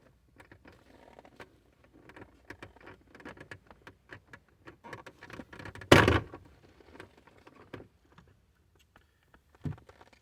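Rustling and light clicking as a leather shift boot and its plastic trim frame are handled and worked down into a car's center console, with one loud knock about six seconds in and a duller thump near the end.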